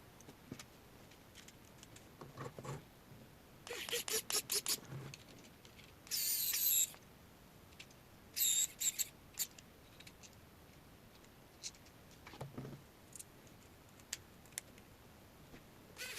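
Small screws and 3D-printed plastic parts being handled and fastened: scattered light clicks, a quick run of clicks about four seconds in, and two brief high squeaks around six and eight and a half seconds.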